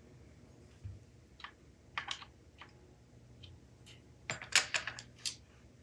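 Small sharp clicks and taps of a hand screwdriver working against the puppet's machined metal arm parts, a few scattered at first, then a quick cluster of louder clicks near the end.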